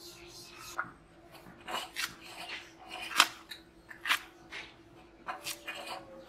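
A bonti (curved Bengali cutting blade) slicing through firm green gourd, about ten crisp cuts at irregular spacing, the loudest about three seconds in.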